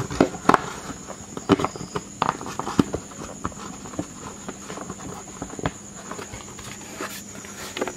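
Irregular light taps and clicks of hands working a rubber seal into place around a new lock in a motorcycle side cover, with a few sharper knocks in the first three seconds.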